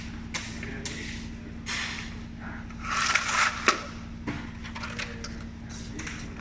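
Plastic tube settler media modules being shoved and set into place: irregular scraping, creaking and sharp knocks, busiest about three seconds in, over a steady low hum.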